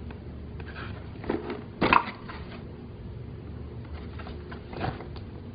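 A cardboard toy box being handled: a few short knocks and scrapes, the loudest about two seconds in, over a low steady hum.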